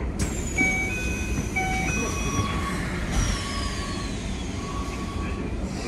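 Keikyu 1000 series electric train running, with its Mitsubishi VVVF inverter and traction motors giving electronic tones that step between pitches and high whines that glide downward, over a steady rumble.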